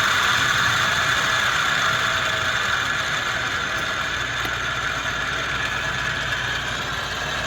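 Hardinge HLV lathe running under power, a steady machine whine that slowly fades and drops in level as the spindle speed is turned down.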